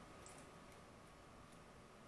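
Near silence: room tone, with a faint click or two near the start as plastic printer parts are handled.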